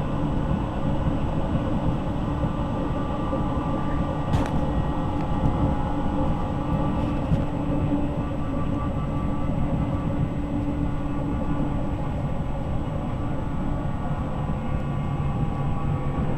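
Z6400 electric multiple unit running between stations, heard from on board: a continuous rumble of wheels and running gear with the steady hum of the traction motors. One hum fades out about three quarters of the way through and a lower one comes in near the end. A single sharp click is heard about four seconds in.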